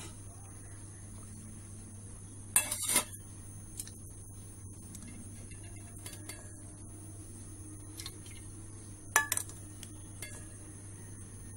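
A ladle clinking and scraping against a steel cooking pot while a broth is stirred: a short clatter about two and a half seconds in and another near the end, with a few light taps between. A steady low hum runs underneath.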